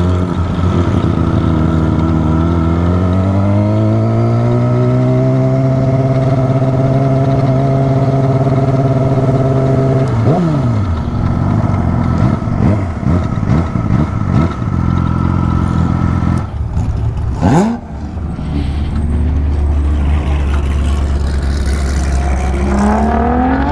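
Performance vehicle engine pulling up in pitch over a few seconds and then holding a steady high note, with quick falling pitch sweeps of vehicles passing or revving about ten seconds in, then settling to a lower steady engine note that rises again near the end.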